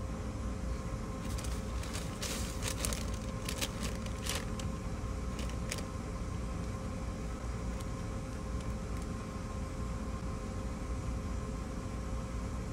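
Steady low machine hum carrying a faint steady tone, with brief crinkling of a paper pastry bag during the first six seconds or so as a croissant is eaten from it.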